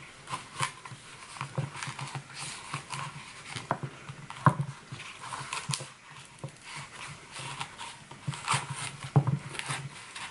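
Kitchen knife blade wedged and worked under the glued cardboard top layer of an eyeshadow palette, making irregular scraping, scratching and creaking strokes with a few sharp clicks, the loudest about four and a half seconds in.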